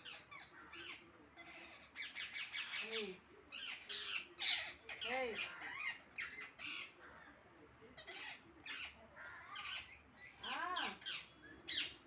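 Parakeets squawking: bunches of short, shrill calls repeated in quick runs with brief pauses between them.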